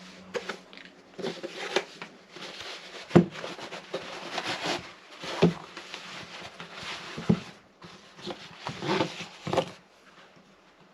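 Rustling and handling noises with several sharp knocks, over a faint steady hum; the noises stop about ten seconds in.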